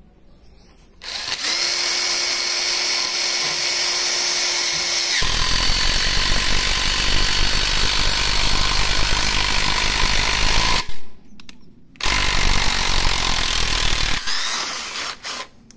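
Parkside PDSSA 20 Li A1 cordless impact driver driving an 8 x 120 mm lag screw into a wooden beam with no pilot hole. The brushed motor starts about a second in and whines steadily. About five seconds in it turns harsher and heavier as the impact mechanism starts hammering under load. It stops briefly near eleven seconds, runs again, and ends in a few short bursts as the screw is seated.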